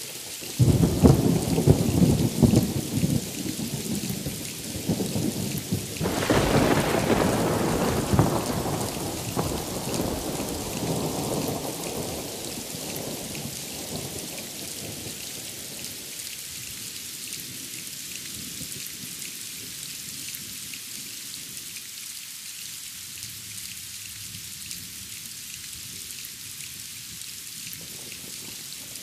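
Thunderstorm: rumbles of thunder, then a louder clap about six seconds in that rolls away over several seconds, over steady heavy rain that carries on evenly once the thunder has faded.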